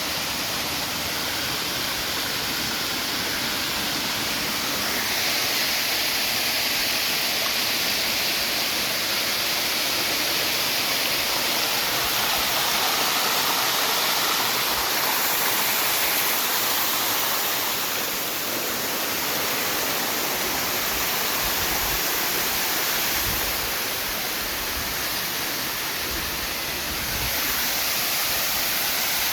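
Waterfall pouring and splashing, a steady loud rush of water that swells and eases slightly a few times.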